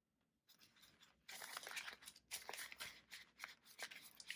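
Paper banknotes and a clear plastic cash-envelope pouch rustling and crinkling as bills are handled and slid into the pouch, starting about a second in and going on in irregular bouts.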